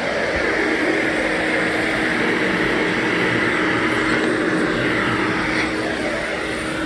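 Vacuum cleaner running steadily on carpeted stair treads, a constant motor whine with a steady hum under it.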